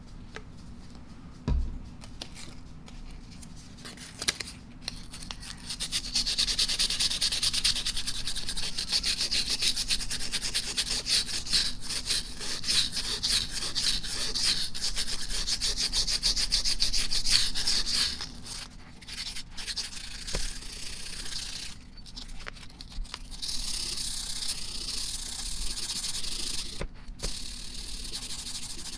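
Rapid back-and-forth scrubbing by hand inside an oiled steel plate from an Ingersoll-Rand air impact, working off surface rust: a fast, rasping rub that starts a few seconds in, runs about twelve seconds, drops away, and picks up again. A light knock comes shortly after the start.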